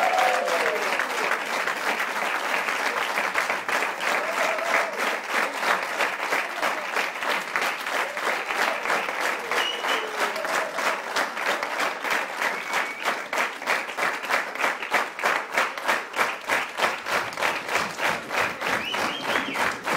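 Audience applause as the last sung note dies away. About halfway through it settles into steady rhythmic clapping in unison, with a few voices calling out over it.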